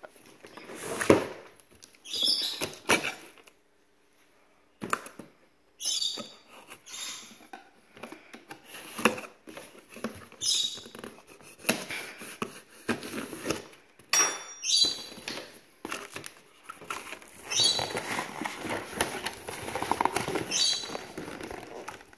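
A blade slicing and scraping through packing tape on a cardboard shipping case, in irregular strokes with short tearing rips. Cardboard rustling and scraping as the flaps are worked and pulled open near the end.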